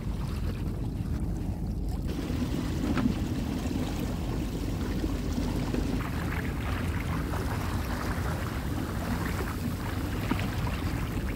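Old Town Autopilot 120 kayak's hull running through choppy water: steady rushing and splashing of water at the bow, with wind buffeting the microphone.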